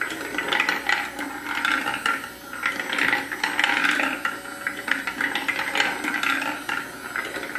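Small battery-powered marble machine running inside a glass vase: its motor-driven lift whirs while marbles click and rattle down the wooden spiral track in a steady stream of small ticks.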